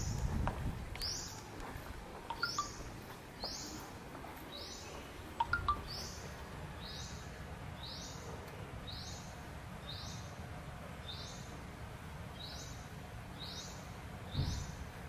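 A bird calling over and over, one high chirp that falls in pitch repeated about once every second, over faint background noise with a couple of small clicks.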